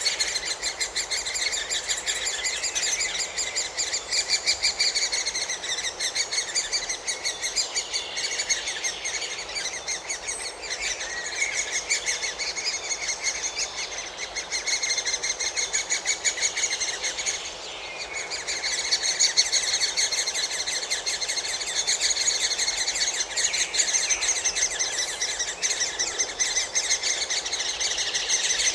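Great spotted woodpecker nestlings begging: a continuous, rapid, high-pitched chatter of many short calls, with a brief lull about 18 seconds in.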